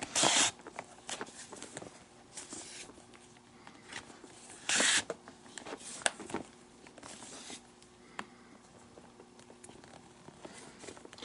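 Leather glove lace being pulled through the lace holes of a baseball glove: several short friction swishes as the lace is drawn tight, the loudest right at the start and about five seconds in, with quieter rustling of leather and handling between.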